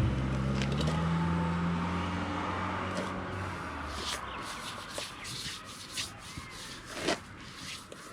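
A motor running steadily, fading away over the first few seconds, then scattered scraping and rubbing noises with a few sharp clicks.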